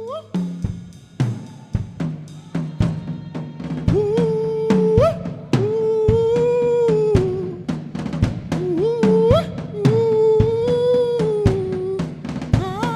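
Live worship music: a drum kit playing steady strokes under a loud melody line that slides up into long held notes.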